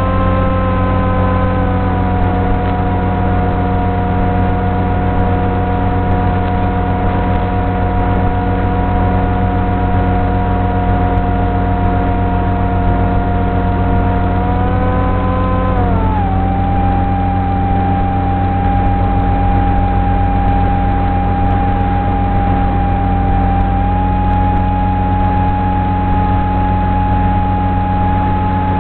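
Electric motor and propeller of a Sonic Model AR Wing FPV flying wing running steadily under a low hum, its whine stepping down in pitch near the start. About fifteen seconds in it rises briefly with throttle, then drops lower and holds steady.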